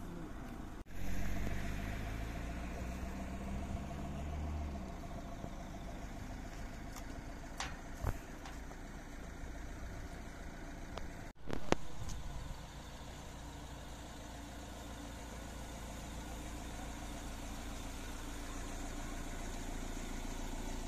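Motor vehicle engine running steadily with road noise, deeper and louder for a few seconds near the start, with a few short knocks later on.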